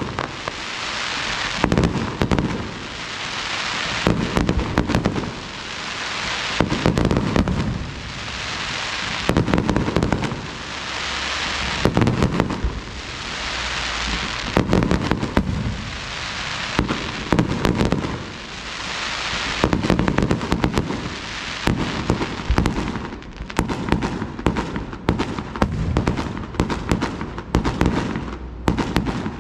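Fireworks display: aerial shells bang and burst, each followed by a crackling hiss that swells and fades, about every two to three seconds. Near the end the bangs come in a rapid volley.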